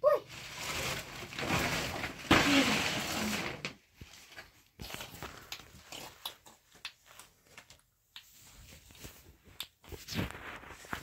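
Heavy plastic tarp rustling and crinkling as it is handled and stitched by hand, loud for the first few seconds, then only scattered light crackles and clicks.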